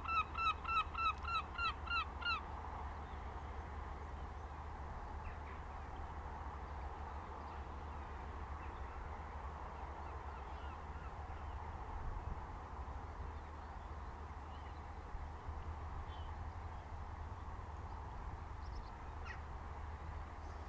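A bird calling in a rapid, even series of short calls, about three or four a second, which stops about two seconds in. After that there is a faint steady background of hiss and low rumble, with a few faint chirps.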